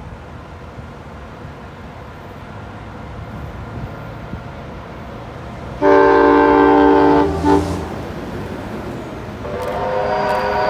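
An approaching heritage train sounds a long, loud multi-note blast on its horn that starts abruptly about six seconds in, then sounds again from about nine and a half seconds, over the low rumble of the train.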